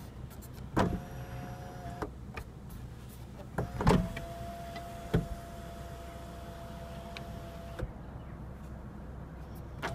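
Electric moonroof motor of a 2014 Lexus IS350 whining steadily as the glass panel slides. A click of the overhead switch starts a short run of about a second, then a second click starts a longer run of about four seconds that stops with a click.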